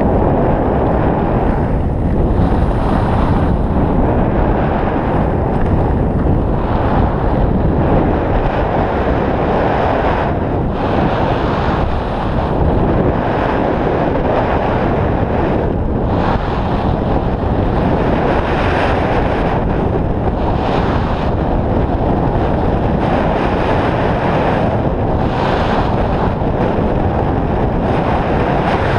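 Wind rushing over the camera's microphone at skiing speed: a loud, steady roar. Brighter hissing swells come every few seconds, the skis scraping on packed snow through the turns.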